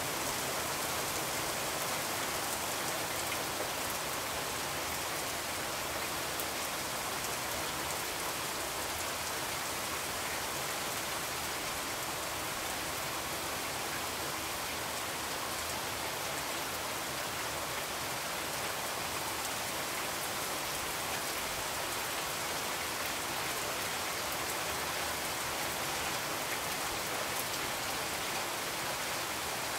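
Steady rain falling: an even hiss that stays at one level throughout.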